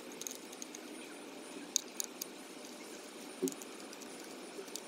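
A few light, sharp metallic clicks and taps from hand tools working the screws of a Dodge Cummins accelerator pedal position sensor, scattered about two and three and a half seconds in and again near the end, over a steady background noise.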